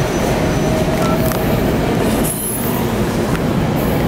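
SEPTA Regional Rail train rolling through a grade crossing: a loud, steady rumble of wheels on rail, with a brief high squeal about two seconds in.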